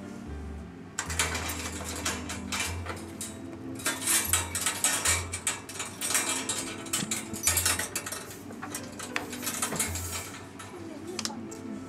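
Irregular clattering and rattling as a pet bed is pushed into a wire cat cage and handled against its bars and floor, loudest in the middle, over soft background music.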